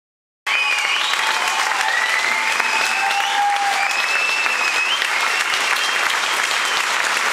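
Audience applauding, cutting in abruptly about half a second in, with high whistling tones gliding over the clapping for the first few seconds.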